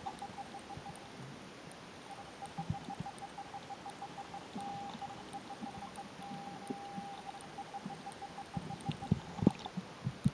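Muffled sound of water picked up by a submerged camera, with scattered soft knocks and bumps under a faint, steady, rapidly pulsing whine.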